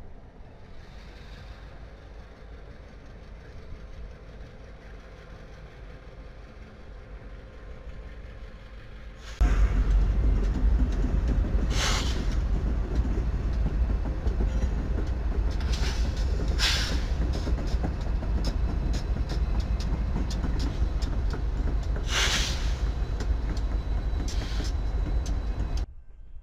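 BNSF freight train diesel locomotives rolling past: a quieter, more distant train rumble, then about a third of the way in a much louder, close rumble of engines and wheels, broken by three brief sharp high-pitched noises, which cuts off suddenly near the end.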